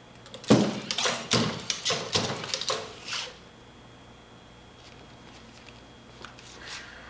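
A quick, irregular run of about ten loud wooden knocks and clatter lasting about three seconds: the powered bipedal walker's feet striking the wooden walkway board. A few faint ticks follow near the end.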